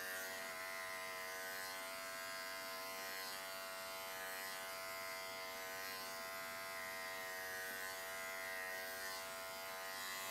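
Cordless pet clipper, a Wahl Bravura, running at a steady even buzz as it is worked through a Maltese's body coat.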